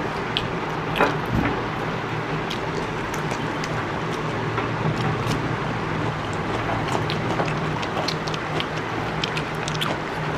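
Steady low hum over a background of noise, with scattered light clicks and ticks from people eating by hand at a table.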